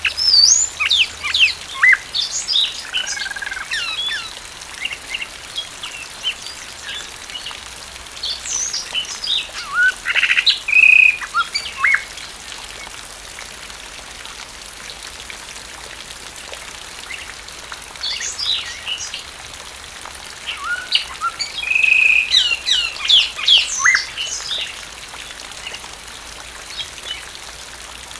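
A blue mockingbird singing in three bouts of quick, varied chirps and whistled phrases with pauses between them, over a steady hiss of rain.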